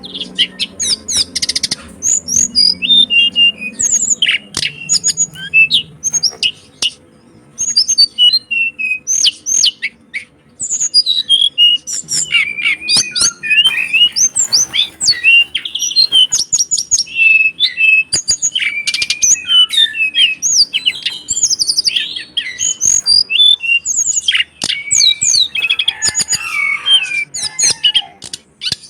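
Pet songbird singing a fast, varied song of chirps, trills and sweeping whistled notes, broken by a couple of short pauses.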